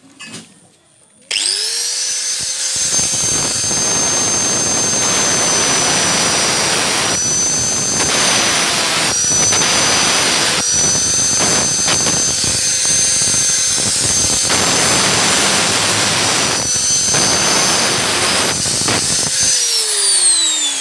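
Electric angle grinder with a cutting disc spinning up with a steady high whine and cutting a copper rod in several grinding passes, then winding down with a falling pitch near the end.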